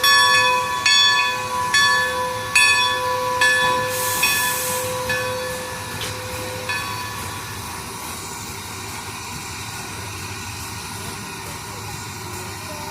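The bell of the steam locomotive Great Western 90, a 2-10-0 decapod, ringing about once a second and dying away after about seven seconds. There is a short burst of steam hiss about four seconds in, and a steady steam hiss follows once the bell stops.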